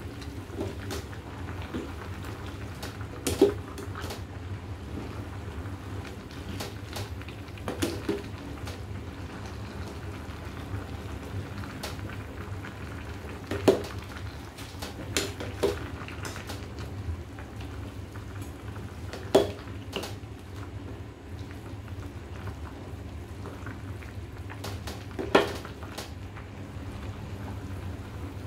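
A pot of soup bubbling steadily on a gas stove. A long metal spoon stirs the greens and clinks sharply against the stainless steel pot every few seconds.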